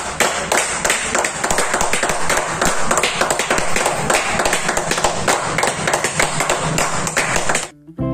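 A small group clapping: steady applause of many close, irregular claps that cuts off suddenly near the end.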